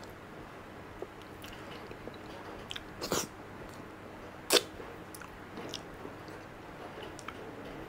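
Soft, wet chewing of ripe durian flesh, with small mouth clicks and two sharper smacks about three and four and a half seconds in.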